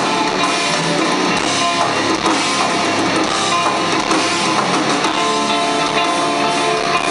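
A sludge/stoner metal band playing live: electric guitars strummed over drums, loud and dense without a break.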